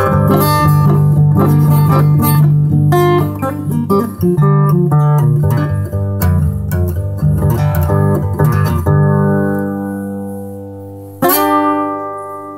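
Acoustic guitar improvisation in a blues style: a run of plucked notes over a steady low droning bass. About nine seconds in the playing stops and the notes ring on, then one last chord is struck near the end and left to fade.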